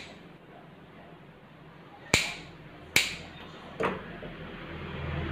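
Grooming scissors snipping dog hair: three sharp snips, two strong ones about a second apart starting around two seconds in, then a softer one a little later.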